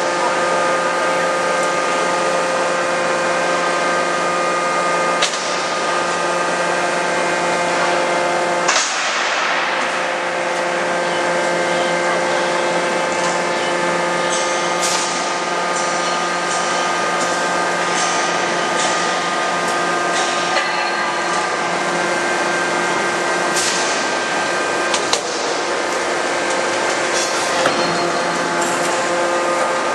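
Steady hum of a 200 kJ CNC fully hydraulic die forging hammer's hydraulic system, broken by a few sharp knocks, the loudest about nine seconds in with a short ring after it.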